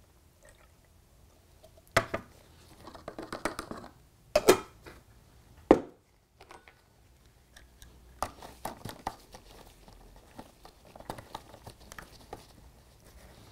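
Handling of small plastic and glass containers on a tray: three sharp knocks as the jug, funnel and bottle are moved and set down. These are followed by a run of small plastic clicks and scrapes as a spray-pump top is screwed onto a small bottle.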